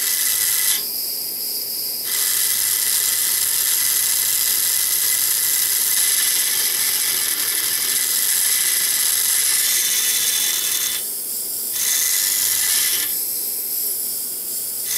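Small low-voltage DC motor salvaged from a computer drive, spinning fast and whirring through its plastic gear train, powered by a homemade Peltier thermoelectric generator.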